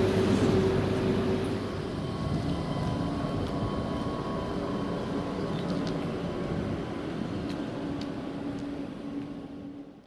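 A river ferry's engine running for about the first two seconds. Then a double-deck electric train standing at a station platform, humming steadily with a few held whining tones and faint ticks. The sound fades out at the end.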